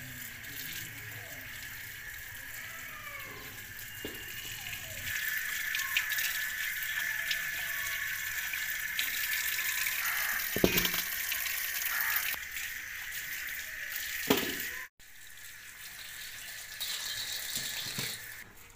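Water running from a tap onto carrots and into a steel bowl as they are rinsed by hand. The water is a steady hiss that gets louder about five seconds in, then cuts off abruptly near the fifteen-second mark and comes back quieter.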